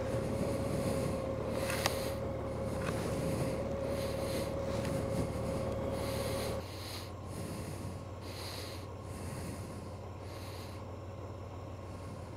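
A Honda Gold Wing's flat-six idling with a low, steady hum that cuts off about six and a half seconds in, as the engine is switched off. Short breaths and the rustle of a riding jacket come through on the rider's microphone throughout.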